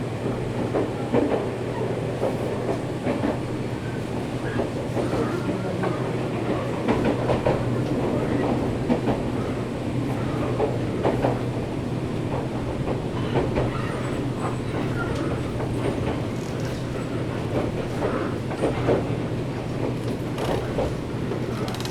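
Running noise heard inside a Nankai 7100-series electric train car: a steady low hum and rumble, with the wheels clacking irregularly over rail joints.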